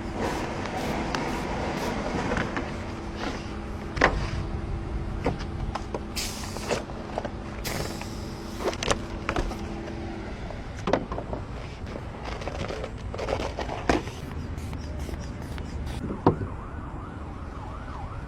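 Scattered clicks and knocks over street noise, with a steady hum through the first half and two short hisses in the middle. A wavering siren begins near the end.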